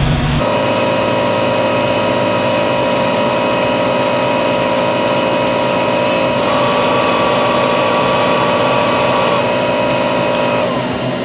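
A motor runs steadily at high speed. Its pitch steps up slightly about six seconds in, and it winds down with falling pitch near the end.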